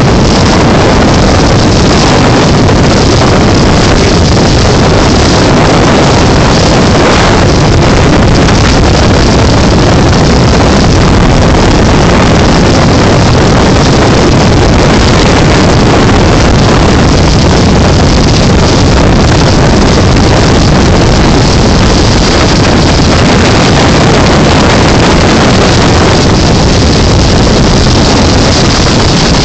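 Motorboat running at speed over open water: a loud, steady rush of engine, hull and water noise, overlaid with heavy wind buffeting on the microphone.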